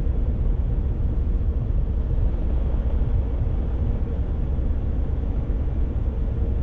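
Peterbilt 579 semi truck's diesel engine running, heard from inside the cab as the truck moves slowly: a steady low rumble with a faint, even hum over it.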